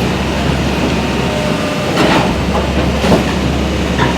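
Elevated subway train running past, a steady heavy rumble with irregular clattering knocks from the wheels on the track in the second half.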